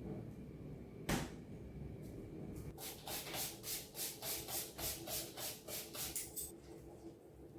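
A surface being wiped in quick back-and-forth rubbing strokes, about four a second, for a few seconds, after a single knock about a second in.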